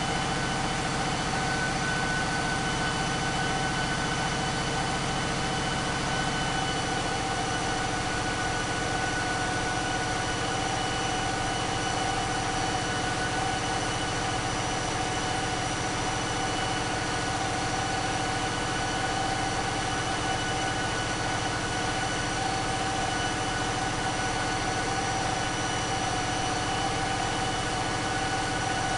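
Caterpillar 3516B V16 diesel engine running steadily on an engine dynamometer, with steady high tones over the engine note; its low note thins out about six or seven seconds in.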